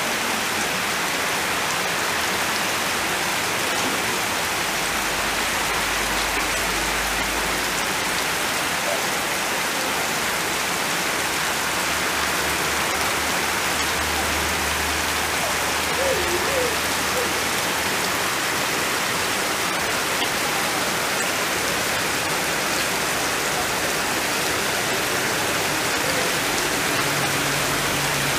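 Heavy tropical downpour: steady, even rain falling on foliage and waterlogged ground.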